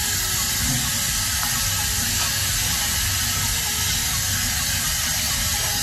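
Handheld shower head spraying water over a small dog's wet coat as it is rinsed: a steady hiss of running water.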